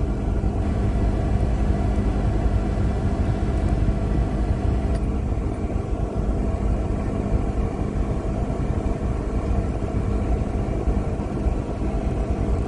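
Engine running steadily at a constant speed: a steady hum over a heavy low rumble, with no change in pitch.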